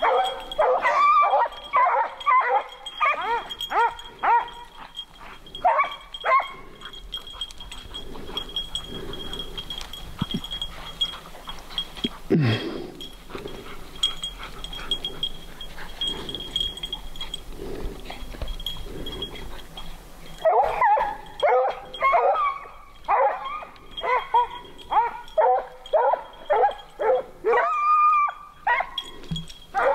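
Hunting hounds baying on a bobcat track. There are fast runs of repeated bays for the first six seconds or so, a quieter stretch in the middle, and then the baying picks up again about two-thirds of the way through.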